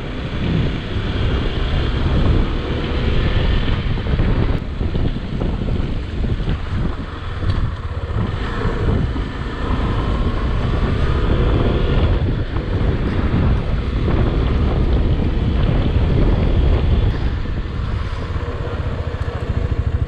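Wind rushing over the microphone of a moving motorcycle, a steady dense rumble and hiss, with the bike's single-cylinder engine running underneath.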